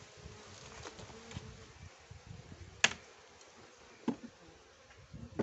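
Honey bees buzzing around an open hive, with sharp clicks from a metal hive tool prying at the wooden frames: a loud click about three seconds in and a smaller one about a second later.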